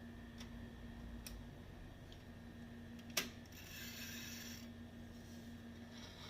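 SCM Sterling 12 manual typewriter: a few faint, widely spaced mechanical clicks, then a sharper clack about three seconds in followed by about a second of rasping mechanical noise, over a faint steady hum.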